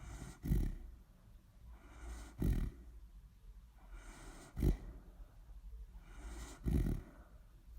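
A dog snoring in its sleep: four short snores about two seconds apart.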